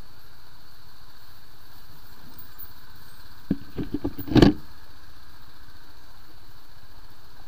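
Motorcycle running steadily along a rocky dirt trail, with a quick series of knocks and thumps about three and a half seconds in, the loudest a second later, as the bike jolts over rocks.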